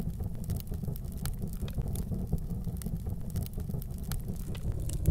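Steady low rumble with scattered sharp crackles: the sound-effect bed under an animated fire-and-embers logo outro.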